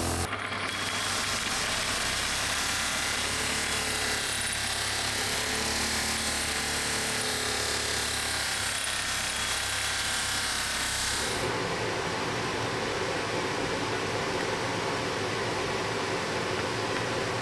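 Power tool running steadily, a motor hum under a hiss; about eleven seconds in it cuts to a different, duller machine noise.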